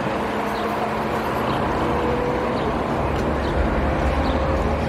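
Outdoor street ambience: a steady wash of road traffic and city background noise, with faint small chirps or ticks above it.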